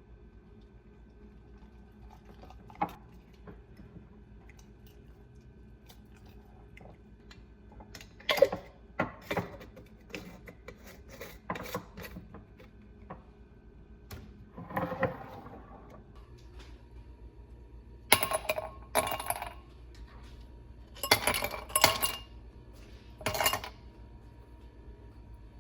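Dishes and cutlery clinking and clattering in irregular bursts, with several louder clusters in the second half.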